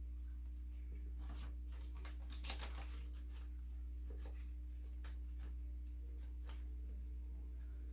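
Soft rustling and crinkling of paper bills and a cash envelope being handled, in scattered short bursts, the strongest about two and a half seconds in. A steady low hum runs underneath.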